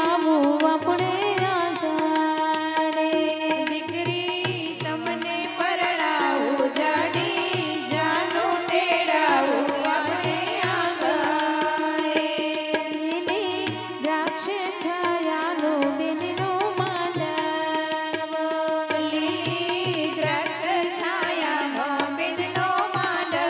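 Women singing a Gujarati wedding song (lagna geet) into microphones over an electronic keyboard accompaniment with a steady drum beat, amplified through a PA system.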